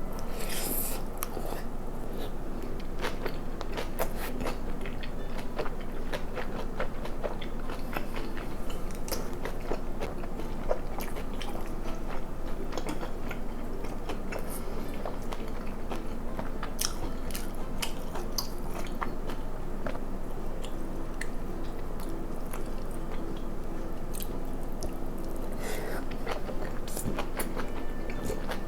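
Close-miked eating: steady chewing and biting, with many small irregular wet clicks and soft crunches of braised kimchi and pork.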